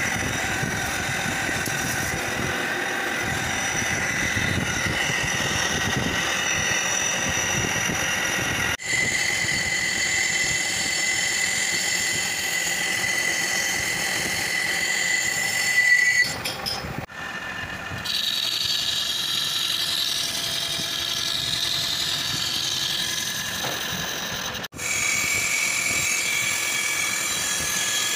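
Metal lathe cutting a large steel bearing ring, the tool shaving steel into curled chips with a steady high whine over the machine's running noise. The sound breaks off briefly three times.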